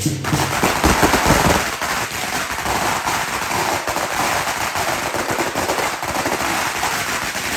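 A long string of firecrackers going off: a rapid, continuous crackle of bangs that cuts off suddenly at the end.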